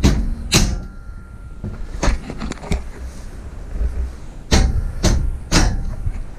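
A string of sharp knocks and clacks in a small enclosed space as bed-frame parts are handled and fitted, with three loud ones in quick succession near the end.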